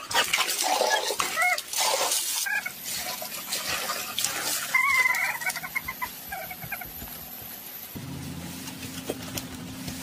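Chickens clucking in short pitched calls, mostly in the first half, over scraping noises. A low steady hum comes in about eight seconds in.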